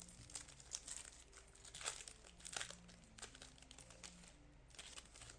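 Foil wrapper of a baseball card pack crinkling and tearing as it is opened: a run of sharp crackles, strongest about two seconds in.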